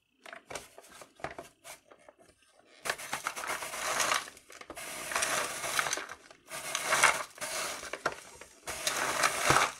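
Hand crank and scraper of a 1994 Tyco Doctor Dreadful Ice Scream Machine being turned, scraping frozen ice cream out of the bowl. A few light plastic clicks come first, then four stretches of scraping, each about a second and a half. The toy's gear does not stay engaged well and pops off, a fault the owner points out.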